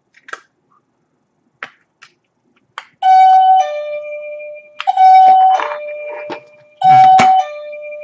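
Bedrocker wireless doorbell's plug-in speaker unit sounding a fairly loud two-note ding-dong chime three times in quick succession, each a higher note stepping down to a lower one that rings on and fades. A few small clicks come first as the push-button is handled.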